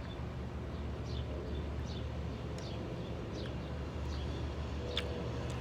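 A bird calling: a string of short, high chirps, each falling in pitch, repeated about every three-quarters of a second over a steady low rumble.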